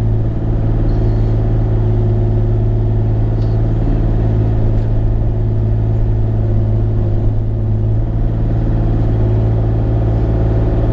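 Bobcat E35 mini excavator's diesel engine running at a steady pitch, with a few faint clicks over it.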